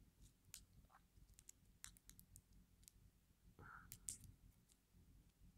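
Faint, scattered small clicks of metal lock parts being handled while a pin-tumbler lock is shimmed apart, with a slightly louder click about four seconds in.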